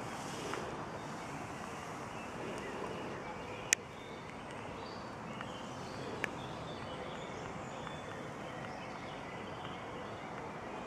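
Distant birds chirping over a steady background hiss, broken by a sharp click about four seconds in and a fainter click a little after six seconds.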